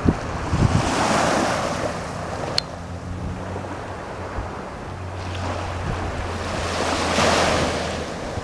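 Sea waves washing in, the rush swelling about a second in and again around seven seconds in, with wind rumbling on the microphone.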